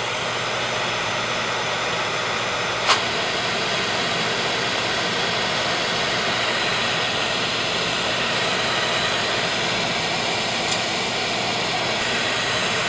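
Steady hissing rush from a handheld fiber laser welding setup, its shielding gas and fume extraction running while it welds silicon bronze wire onto galvanized steel. There is one sharp tick about three seconds in.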